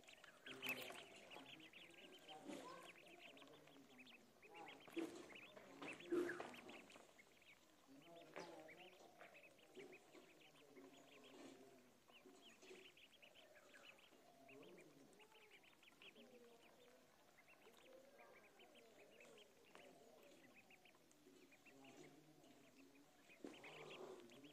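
A flock of ducklings peeping constantly, many short high calls overlapping, fairly faint, with a few louder moments near the start and again about five to six seconds in.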